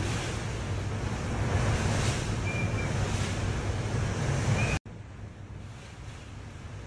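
Storm wind buffeting a phone microphone over a steady rush of water, with a deep rumble. It cuts off abruptly about five seconds in and goes on as a quieter rush.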